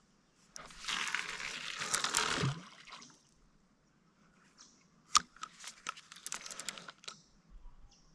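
A rustling, crinkling noise for about two seconds, then a scatter of sharp clicks and taps.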